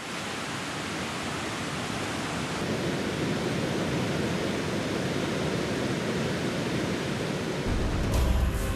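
Godafoss waterfall, a wide curtain of water falling into the river, making a steady, even rush. A deep low note from music comes in near the end.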